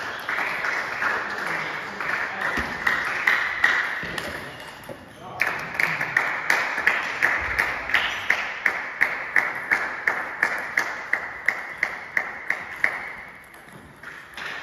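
Table tennis balls clicking off tables and bats. Irregular hits come first, then a steady rally of about three hits a second that fades out near the end.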